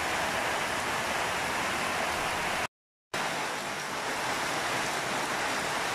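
Heavy rain falling on broad leaves, a steady hiss that cuts out completely for about half a second partway through.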